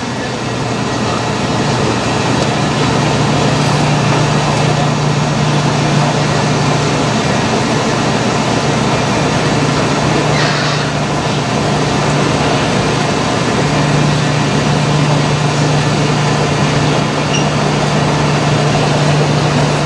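Dexter T-300 commercial front-loading washer filling with water for its rinse: a steady rush of water with a low, even hum underneath.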